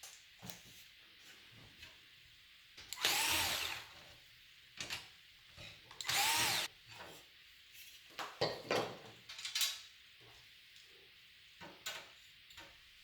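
Small electric screwdriver running in short bursts, two main runs of under a second each about three and six seconds in, its motor pitch rising and falling, with a few shorter bursts and clicks after.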